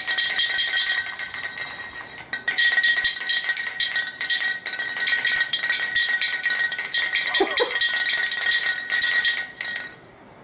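Power tool whining steadily while scouring rust off a steel differential cover, with a dense crackling rattle of metal on metal. It stops shortly before the end.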